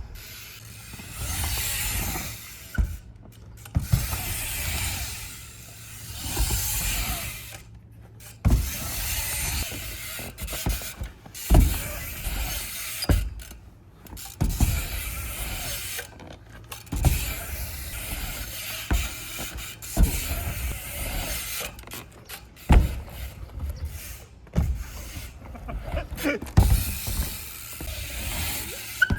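A BMX bike being ridden on ramps. The tyres make repeated rolling swells a second or two long, broken by sharp low thuds of landings and impacts, with mechanical ticking from the bike.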